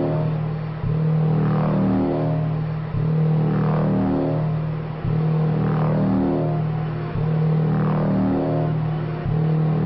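Electronic music: a sustained synth bass phrase that restarts about every two seconds, with a swelling sweep higher up in each repeat.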